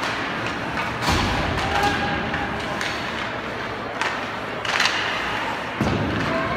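Basketball game on a gym floor: a few heavy thuds of the ball and players' feet, about a second in and again around four, five and six seconds in, over steady crowd and court noise with a few short squeaks.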